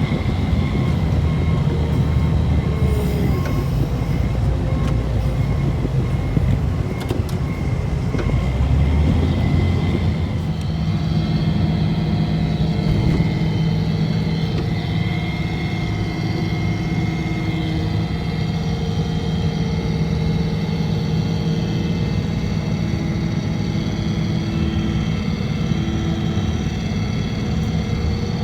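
Engine of a snow-plowing vehicle running steadily while it works, with a thin steady high whine above the drone. The low rumble is heavier for the first ten seconds or so, then settles into an even hum.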